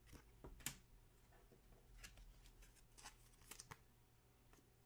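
Faint, scattered clicks and brief rustles of trading cards being handled and slid apart.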